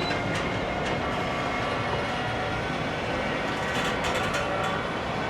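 A train rolling through a station: a steady rumble with several thin steady whining tones, and a quick run of clicks over rail joints about four seconds in.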